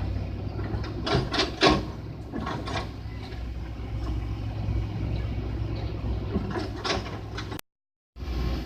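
Heavy truck engine idling with a steady low hum, with a few sharp knocks about a second in and again near the end. The sound cuts out completely for about half a second just before the end.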